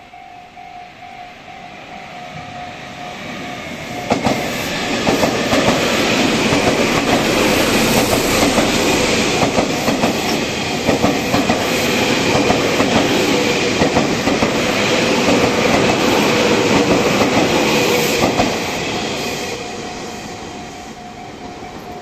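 Tobu Tojo Line electric train approaching and passing close by, its noise building, then loud with wheels clicking over rail joints, and fading toward the end. A level-crossing warning bell rings in a steady on-off pattern under it, plainest at the start and again as the train fades.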